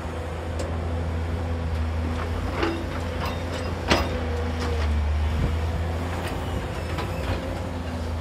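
JCB tracked excavator's engine running steadily while it swings a loaded bucket over a tipper truck and dumps red soil into the bed. A few clanks come just before a sharp bang about four seconds in, as the load drops into the truck, and then it runs on steadily as the bucket swings back to the pit.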